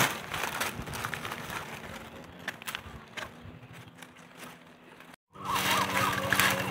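Dry leaves and twigs rustling and crackling with sharp little snaps as a gloved hand works a wild mushroom out of the leaf litter. After a sudden break about five seconds in, a steady hum starts with a quick repeated chirping call over it.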